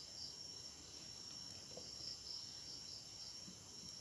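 Crickets chirring steadily, one continuous high-pitched trill.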